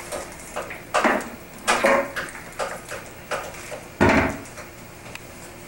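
Kitchen containers and utensils handled on a counter while baby formula is made: a run of short clinks and knocks at uneven spacing, with a heavier thump about four seconds in.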